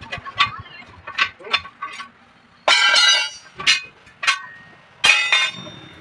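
Steel tyre levers and the truck wheel's lock ring clanking against the steel rim as the ring is pried off: a series of sharp metal knocks, several ringing on afterwards, the loudest about three seconds in and again about five seconds in.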